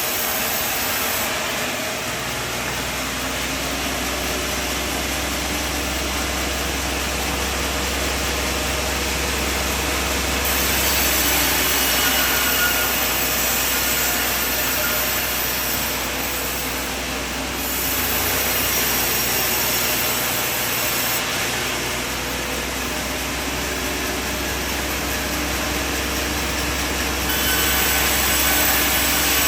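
Sawmill saw cutting timber over steady engine noise. The sound shifts abruptly several times, getting brighter about ten seconds in, again near eighteen seconds and near the end.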